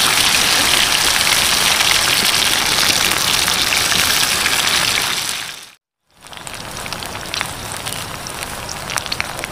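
Banana-stem batter frying in hot oil in a wok over a wood fire: a loud, steady sizzling hiss. It cuts out briefly about six seconds in and comes back quieter, with scattered sharp crackles.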